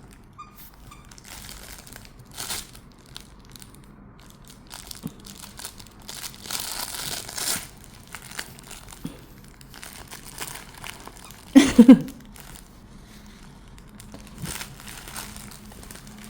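Crinkling and crunching as a Siberian husky chews and plays with a new toy, in scattered bursts. About three-quarters of the way through comes a brief, loud pitched sound.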